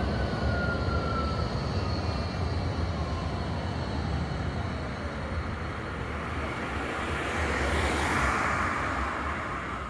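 Low-floor articulated tram passing, with a steady low rumble and a motor whine that falls in pitch over the first few seconds. About eight seconds in, a car passes close by with a swell of tyre and engine noise.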